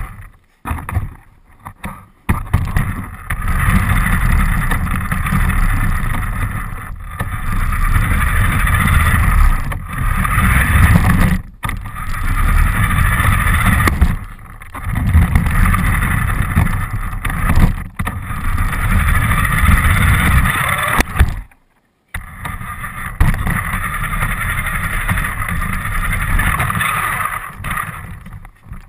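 Radio-controlled car running with the camera riding on it: motor and drivetrain whine over a low rumble of the wheels on the ground, coming in bursts of a few seconds broken by short drops, with a brief cut-out about three quarters of the way in.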